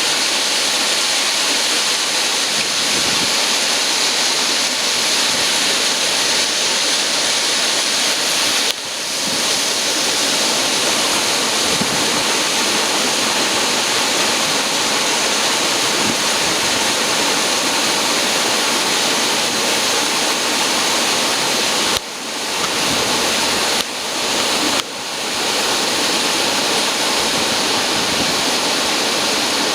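Duct-cleaning vacuum machine running with a loud, steady rush of air. Its level dips briefly four times and comes straight back.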